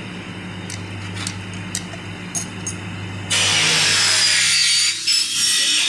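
A steady low hum with faint ticks, then about three seconds in a loud, hissing power-tool noise starts abruptly and keeps running, with a brief dip near five seconds.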